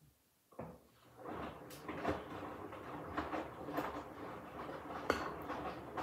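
Hoover H-Wash 300 Plus front-loading washing machine: after a short clunk, the drum starts turning about a second in, and the wet laundry tumbles and sloshes in the soapy water with repeated thuds and knocks.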